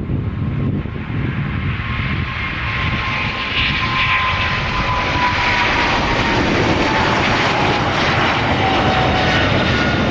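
Boeing 777's twin jet engines at takeoff power during the takeoff roll and climb-out: a loud steady roar that swells about three and a half seconds in, with a whine sliding slowly down in pitch as the jet passes.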